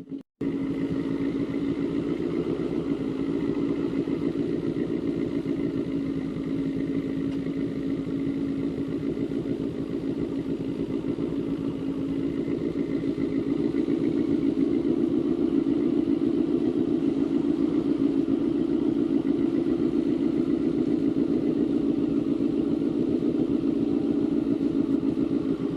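A 400 cc motorcycle engine running steadily at low revs, growing a little louder about halfway through.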